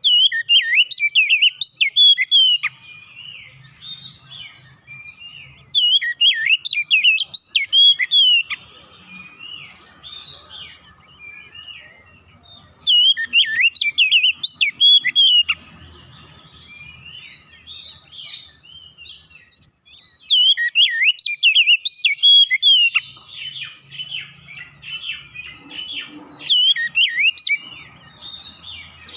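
Oriental magpie-robin singing: loud phrases of rapid, varied whistles and chirps in repeated bursts of two to three seconds, with short pauses between.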